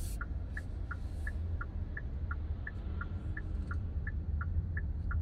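Turn-signal indicator of a Hyundai Kona Electric ticking in a two-tone tick-tock, about three clicks a second, over a low steady road rumble inside the cabin.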